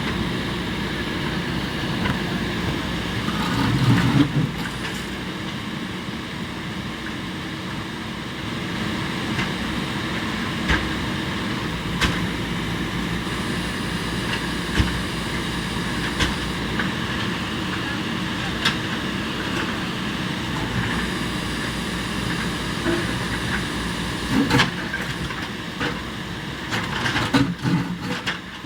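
JCB backhoe loader's diesel engine running steadily as it works, with scattered sharp knocks and clanks, and the engine swelling briefly about four seconds in.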